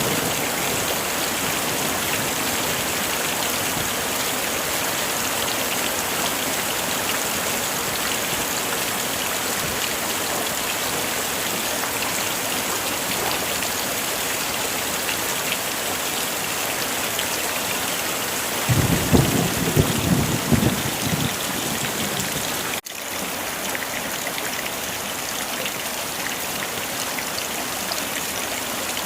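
Heavy rain falling steadily, with a short low rumble of thunder about two-thirds of the way through that is the loudest part. Shortly after, the sound cuts out for an instant and the rain resumes slightly quieter.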